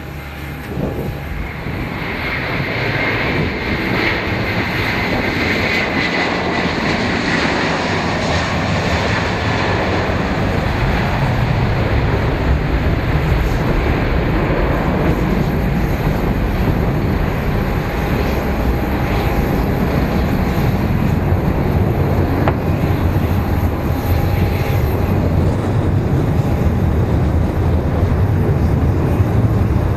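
Airbus A330 jet engines running, the rumble building in loudness over the first ten seconds and then holding steady, with a high whine that falls slowly in pitch during the first several seconds.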